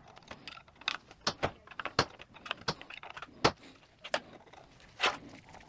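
Small steel valve-body parts of a 42RE automatic transmission (valves, springs, plugs) clicking and clinking as they are handled and set down, in a string of irregular sharp clicks; the loudest come about three and a half seconds in and again about five seconds in.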